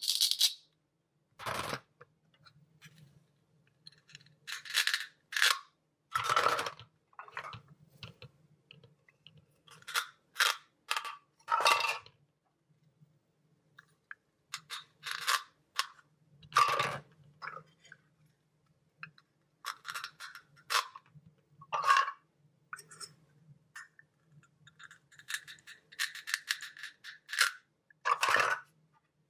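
Toys being handled: irregular clicks, taps and short rustles over a faint low hum.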